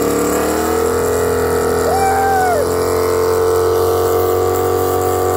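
Car engine held at steady high revs through a burnout, the rear tyre spinning in smoke. A brief rising-and-falling whoop comes about two seconds in.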